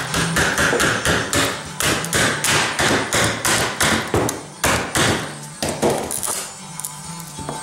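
Hammer tapping on a fiberglass part and its mold, a quick run of about three light strikes a second that thins out and stops about six seconds in. This is knocking the freshly laid-up part loose to release it from the mold.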